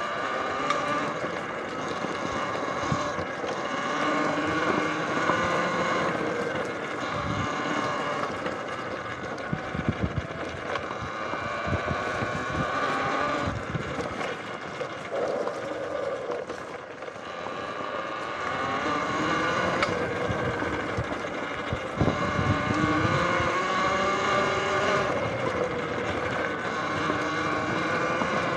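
Talaria electric dirt bike riding a trail: the motor's whine rises and falls in pitch as the rider speeds up and slows down, over wind rush on the microphone, with knocks and rattles from bumps along the way.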